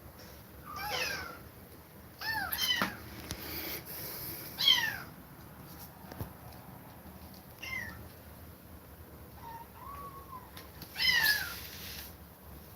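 Kittens meowing: about six high, falling cries spaced a few seconds apart, the loudest about five seconds in and near the end.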